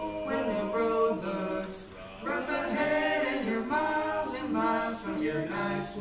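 Men's vocal quartet singing a cappella in close harmony, several voices sustaining notes together, with a short break about two seconds in before they carry on.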